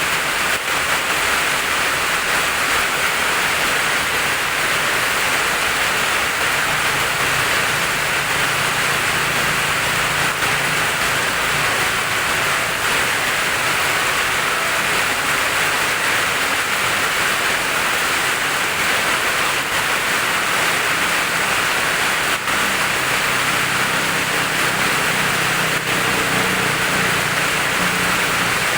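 Steady heavy rain falling, an even hiss without breaks, with a faint low hum coming and going underneath.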